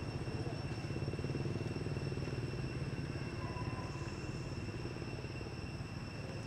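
An engine running steadily, a low fluttering rumble, with a steady high-pitched whine above it.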